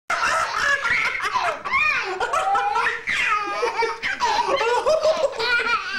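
A baby boy cracking up: hard belly laughs in several long peals with short breaks between.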